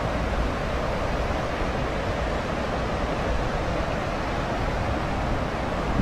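Steady rushing water, an even hiss without breaks, with a low wind rumble on the microphone underneath.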